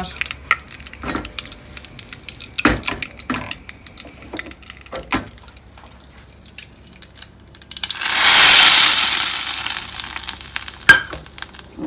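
Utensils clink and tap against pans and dishes. About eight seconds in, a loud sizzle starts suddenly and fades over about three seconds: hot oil hitting lentil soup. A sharp click comes near the end.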